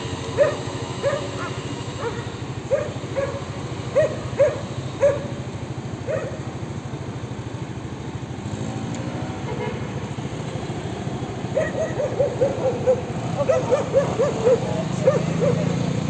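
A pack of stray dogs barking in short repeated volleys, thinning out mid-way, then barking rapidly and without a break over the last few seconds. Underneath is the steady hum of passing cars and a motorbike.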